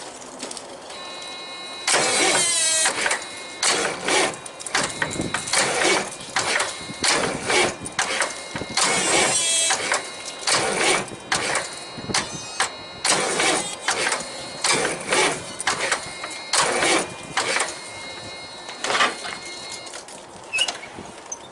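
Big truck's starter being hit over and over in short bursts, about once a second, without the engine starting; the power reaching it is not quite enough. A steady high tone sounds underneath through most of it.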